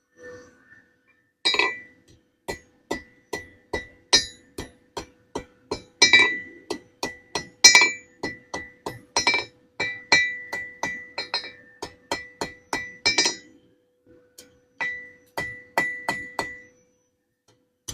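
Hand hammer striking a hot steel bar on an anvil, about two blows a second, each with a bright metallic ring: straightening the steel for a stone chisel. The blows pause briefly in the last third, then resume.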